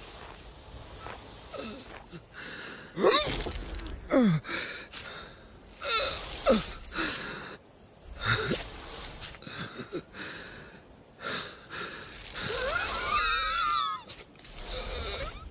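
Non-verbal vocal sounds from a cartoon sheep character, voiced by an actor: a run of heavy breaths and several falling groans, then a higher, wavering whine about thirteen seconds in.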